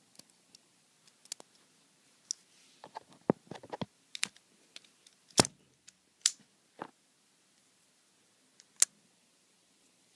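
Leatherman OHT multitool being handled, with irregular sharp clicks and snaps as its tools are worked; a cluster of quick clicks in the middle, the loudest snap about five and a half seconds in, and a last single click near the end.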